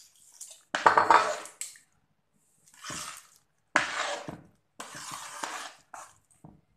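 Water poured from a jug into a metal bowl of freshly churned butter, then a metal spoon and hand working and stirring the butter in the water against the bowl in several short bursts: the butter being washed free of leftover buttermilk.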